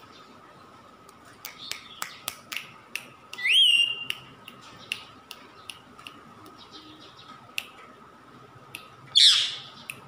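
A caged green parakeet calls: a loud rising whistle about three and a half seconds in and a harsh falling screech near the end, with a run of sharp clicks between the first seconds and the whistle.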